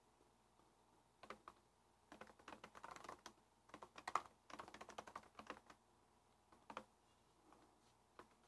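Computer keyboard typing: faint key clicks in short irregular bursts with pauses between them.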